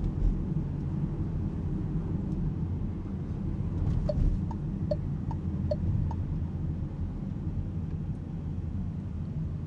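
Cabin noise of an Alpine A390 electric car driving in town: a steady low rumble of road and tyre noise, with no engine sound. About four seconds in come six alternating high and low ticks, about two and a half a second, from the turn-signal indicator.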